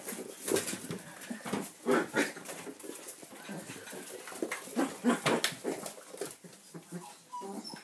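Manchester terrier puppies playing, with many short, irregular puppy yaps and whimpers.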